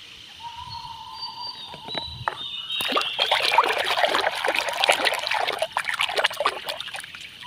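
A hand sloshing and splashing about in a basin of foamy soapy water, starting about three seconds in and dying down near the end.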